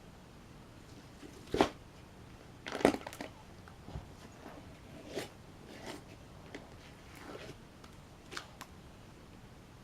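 Slime being squeezed and pressed by hand, trapping and releasing air in short, wet, fart-like squelches. A sharp one comes about one and a half seconds in and a louder cluster near three seconds, then softer, scattered ones.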